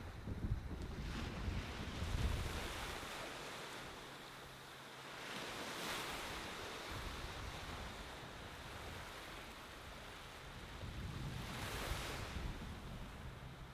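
Ocean waves washing up on a sand beach, the surf swelling and fading twice, about six seconds apart. Wind rumbles on the microphone at the start and near the end.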